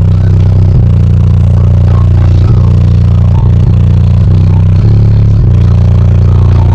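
Four 18-inch MMATS Juggernaut subwoofers in a 4th-order bandpass box playing very loud, deep bass, with the vehicle's panels clattering from the pressure.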